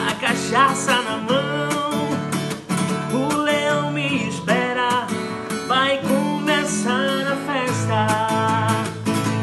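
A man singing a song, accompanied by a strummed acoustic guitar.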